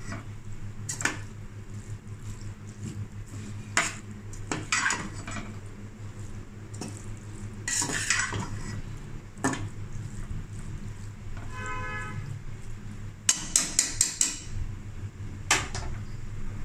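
Metal spoon scraping and clinking against an aluminium pot while stirring and tossing macaroni, in irregular strokes. A quick run of sharper clinks comes near the end.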